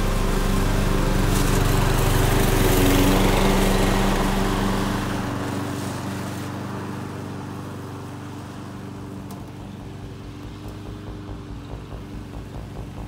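Evatech Goat 22 remote-controlled slope mower running steadily as it mows. It is loudest about three seconds in, then fades gradually as the mower drives away.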